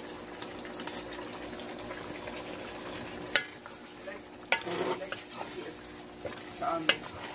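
A wooden spoon stirs a simmering beef caldereta stew in a pot, mixing in a crumbled beef stock cube. The stew bubbles and sizzles steadily, and the spoon clacks sharply against the pot a few times.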